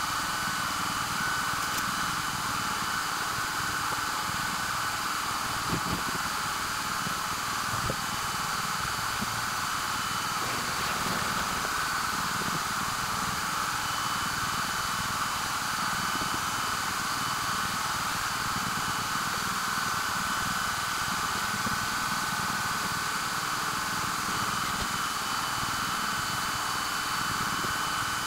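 Steady hiss and hum of a CNC-mounted diode laser rig running an engraving job, with air blowing through the laser head's air-assist nozzle and faint whines from the gantry's motors that drop out and return.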